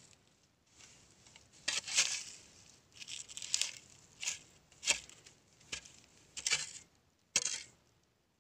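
A metal garden tool blade scraping and chopping through dry soil and dead leaves in a series of short, irregular strokes, about one a second.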